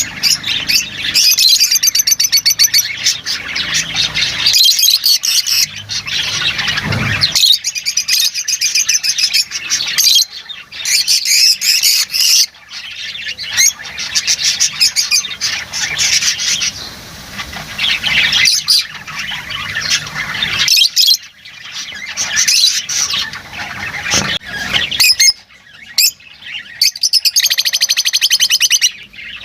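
Lovebirds chattering and squawking: a dense run of shrill, rapid calls, several birds at once, with only brief pauses.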